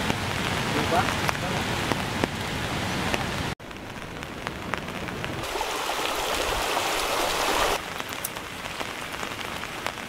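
Rain falling steadily, with the patter and clicks of drops. The sound breaks off abruptly about three and a half seconds in and changes again near eight seconds, as different clips follow one another.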